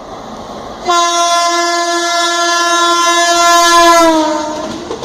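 WAP7 electric locomotive's horn sounding one long, loud blast about a second in, over the noise of the oncoming train. Near the end the pitch drops as the locomotive speeds past, and then the blast fades.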